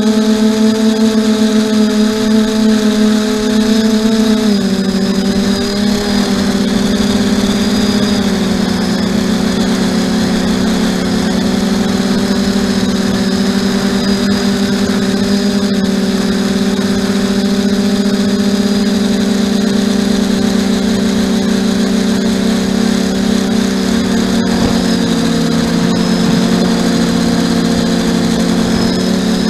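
RC aircraft's motors and propellers running steadily, heard through the onboard camera. The drone drops a little in pitch about four and eight seconds in, and again near the end, as the throttle is eased.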